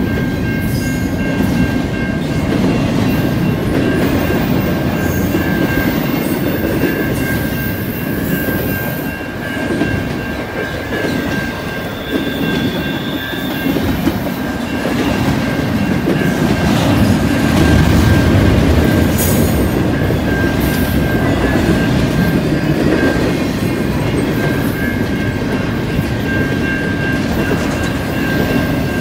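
Double-stack intermodal container well cars of a freight train rolling past, a continuous rumble with wheels clattering over the rails, swelling in loudness a little past the middle. A steady high tone sounds over it throughout.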